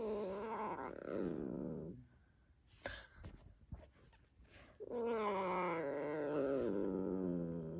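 A domestic cat gives two long, low yowls, each wavering and falling in pitch. The first lasts about two seconds; the second begins about five seconds in and lasts about three.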